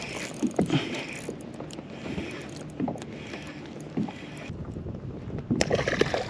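Water lapping against the hull of a fishing kayak, with wind on the microphone and a few light knocks from handling gear, the loudest near the end.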